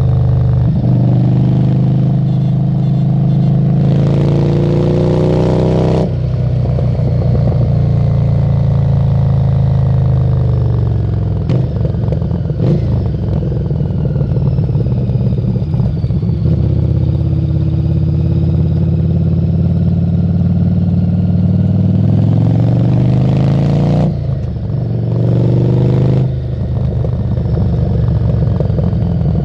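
Harley-Davidson Street 750's V-twin engine through a Screamin' Eagle exhaust under load while riding. The revs climb through the gears with sudden drops at each upshift, about 6 s in and again near the end. In between, the revs ease off and then build steadily for several seconds.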